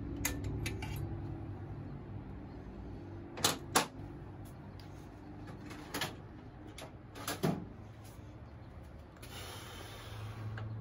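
Several sharp knocks and clicks as the S&S air cleaner cover is handled and seated against the Super E carburettor. The loudest are a pair about three and a half seconds in, with others near six and seven and a half seconds, over a low steady hum.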